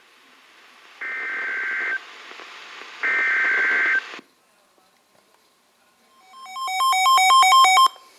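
Emergency Alert System SAME header on NOAA Weather Radio: two roughly one-second bursts of buzzy digital data tones over radio hiss, a second apart, the last of a three-times-repeated header. After a short silence, a loud electronic alert beeping that rapidly alternates between two pitches for about a second and a half.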